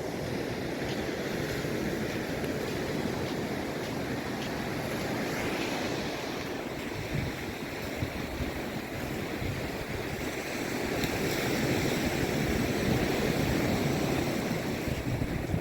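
Ocean surf washing onto a sandy beach, a steady rush that swells louder about two-thirds of the way through, with wind buffeting the microphone.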